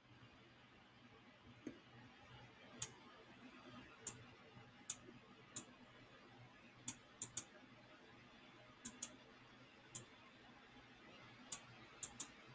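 Computer mouse clicking: a dozen or so sharp clicks at irregular intervals, some in quick pairs, over faint room hiss.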